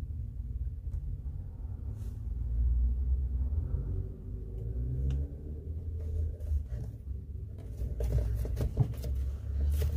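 Hands pressing and rubbing a heat-softened leather sole onto the glued sole of a shoe: scuffing of skin on leather and small knocks, busier over the last couple of seconds, over a steady low rumble.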